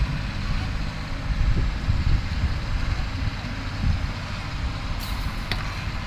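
Tractor engine running steadily with a low rumble.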